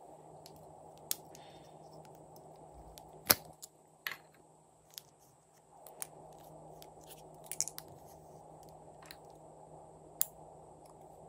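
Sharp snips and clicks from scissors cutting lipstick tips and from metal lipstick tubes being handled, about eight separate clicks with the loudest about three seconds in, over a faint steady hiss.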